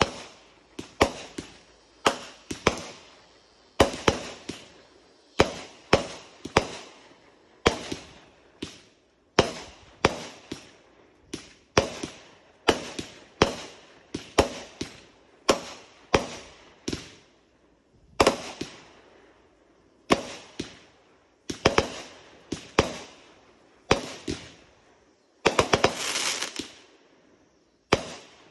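Aerial fireworks going off in quick succession: sharp bangs about one or two a second, each trailing off in a short echo, with a dense run of bangs and crackling a little before the end.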